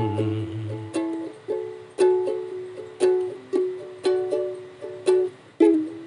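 Ukulele strumming and plucking chords in a steady rhythm, each chord ringing and fading before the next, about one to two strikes a second.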